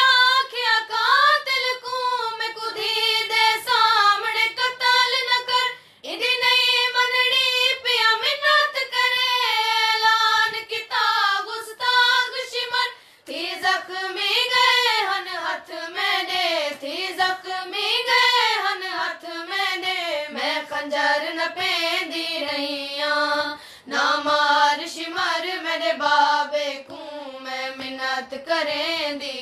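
Young women's voices singing a noha, a Muharram lament, together without instruments, the melody rising and falling in long lines with short breaks between them.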